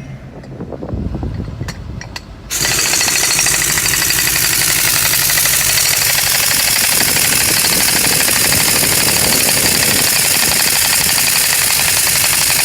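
Construction equipment hammering rapidly and loudly. It starts suddenly about two and a half seconds in, after a quieter low rumble with a few clicks, and then runs steadily.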